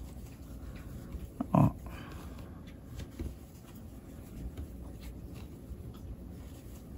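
Faint rustling and soft scratching of a metal crochet hook being worked through soft yarn, with small scattered ticks.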